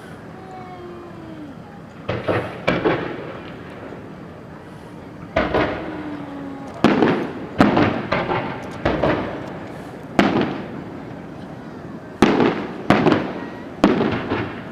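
Aerial fireworks shells bursting: about a dozen sharp bangs, each trailing off in an echoing rumble. They start about two seconds in, come singly and in quick clusters of two or three, and are thickest in the second half.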